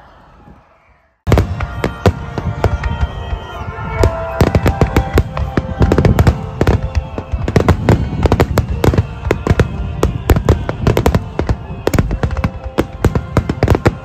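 A rapid barrage of aerial firework shells bursting: many sharp bangs and crackles in quick succession. It starts suddenly about a second in, after a brief near silence, with music playing alongside.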